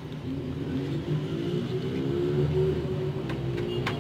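A motor running with a steady hum that shifts slowly in pitch and grows a little louder during the first couple of seconds.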